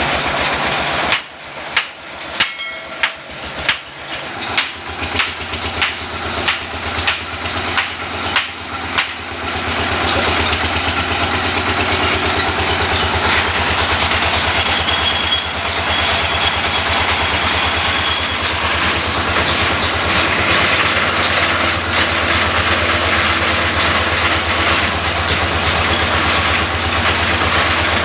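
Borewell drilling rig: about ten loud, sharp knocks, roughly one a second, over the first nine seconds, then the rig's machinery running steadily and loudly with a deep hum.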